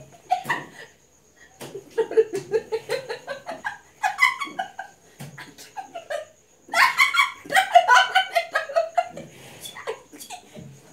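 A person's non-word vocal sounds: short yelps and bursts of laughter in a small room, coming in bursts and loudest about seven seconds in.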